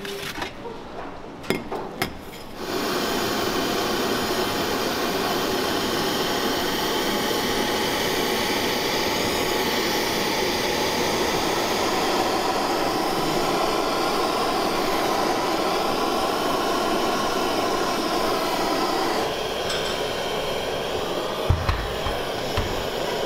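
Handheld kitchen blowtorch flame with a steady hiss, caramelizing sugar sprinkled on halved bananas. A few sharp clicks come just before it starts. The hiss dies down a few seconds before the end, followed by a few light knocks.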